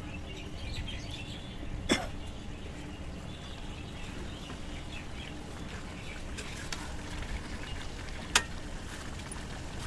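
A spatula stirring a pan of curry, with faint scraping clicks and two sharp knocks about six seconds apart, over a low steady hum.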